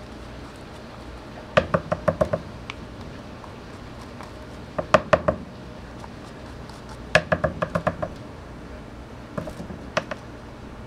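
Hard plastic knocking from the dirty pleated cone filter of a Deerma DX115C vacuum being tapped to shake the dust out during dry cleaning. The knocks come in four quick bursts of three to six taps each, each tap short and ringing.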